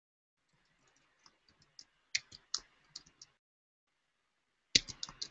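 Keystrokes on a computer keyboard: a run of light, uneven taps about a second in, then a quick cluster of louder ones near the end.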